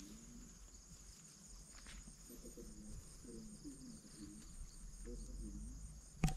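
Insects chirping: a steady, evenly pulsed high-pitched trill, with faint distant voices in places. A single sharp knock comes just before the end.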